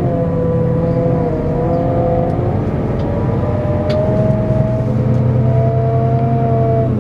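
Scania K410EB6 coach's 13-litre six-cylinder diesel running steadily under way, with a whine that steps up in pitch about halfway through.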